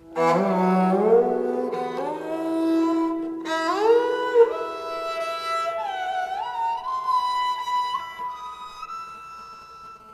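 Sarangi played with the bow: one melodic line of sliding notes that climbs step by step from its low register into its high register, then fades away near the end.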